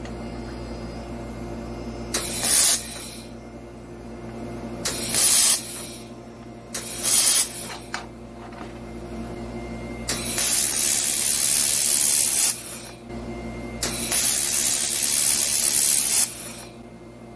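A 1500 W handheld laser welder firing on steel plate. It hisses in bursts: three short tacks, then two longer weld runs of a couple of seconds each.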